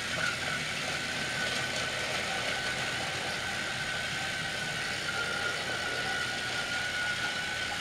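Battery-powered Trackmaster toy train motors whirring steadily as several engines run over plastic track, with a thin steady whine over the rattle.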